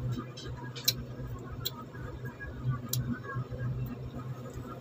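Teeth biting and chewing the thick rind of a santol fruit, which is being peeled by mouth: a few sharp, crisp clicks and crunches spaced through, over a steady low hum.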